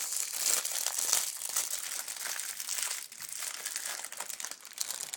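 Plastic bubble wrap being crinkled and pulled off a puzzle cube by hand. It is loudest in the first few seconds and thins out later.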